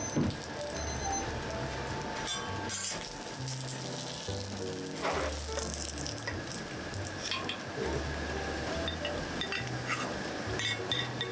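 Pan-fried gyoza sizzling on a flat steel gyoza griddle, with a few metal clinks and scrapes as a spatula lifts them off. Background music with a steady bass line plays over it.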